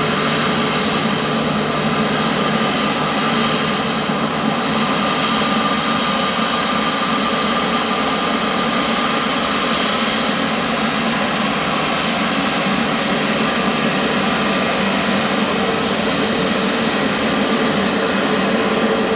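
Jet airliner engines running, a steady rush of noise with several steady whining tones over it.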